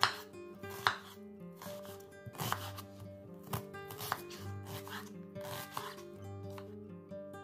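Chef's knife slicing and dicing an onion on a wooden cutting board: uneven sharp knife strikes against the board, the sharpest at the start and about a second in.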